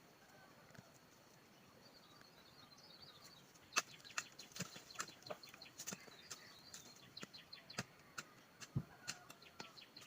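Birds chirping faintly outdoors. From about four seconds in, a string of sharp, irregular clicks and taps comes roughly two or three a second, with a quick high trill among them.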